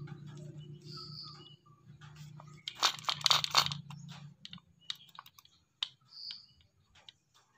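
Plastic blender jar base and blade assembly being handled: scattered small plastic clicks and knocks, with a quick run of clicking rattles about three seconds in.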